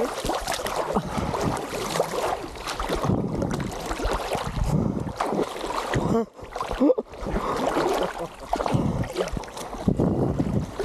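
Sea water sloshing and splashing around an action camera held at the surface by a swimmer, with wind buffeting the microphone. The sound drops out briefly twice a little after halfway.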